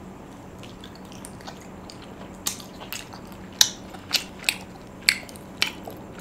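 Crunchy food being bitten and chewed close to the microphone: sharp, crisp crunches about twice a second, starting about two and a half seconds in.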